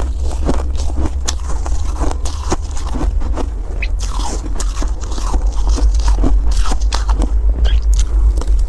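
Crumbly shaved ice crunched and chewed close to a clip-on microphone, in a rapid run of short sharp crackles, with a spoon scraping through the ice in a metal pot. A steady low rumble runs underneath.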